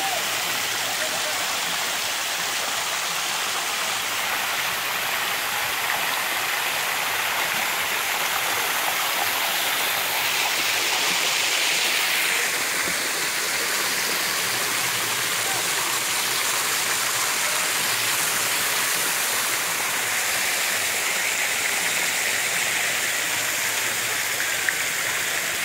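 Steady rushing and splashing of water in a resort lazy river pool, with a small rock waterfall spilling into it.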